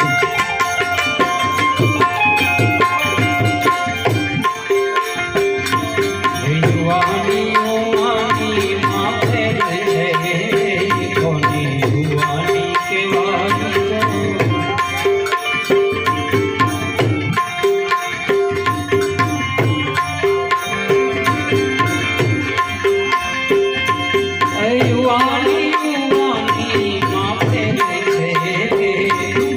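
Instrumental interlude of a devotional bhajan: tabla keeps a steady rhythm under the held tones of a harmonium, with a sliding melodic line weaving over them.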